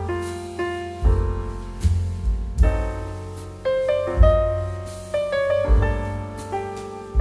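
Background piano music: notes struck and left to fade, with deep bass notes about every second and a half.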